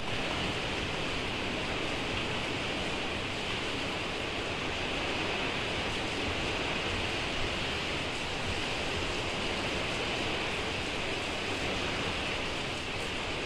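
Heavy rain pouring down in a steady, even hiss that holds without a break.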